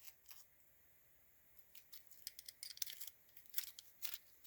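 Faint, scattered small clicks and rustles of a slingshot dart being handled, starting about two seconds in.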